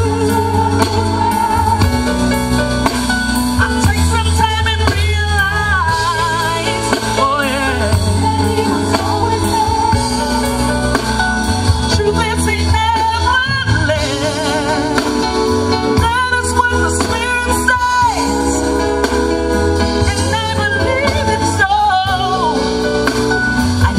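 Live gospel music: a lead vocal sung with wide vibrato over a band with a steady bass line.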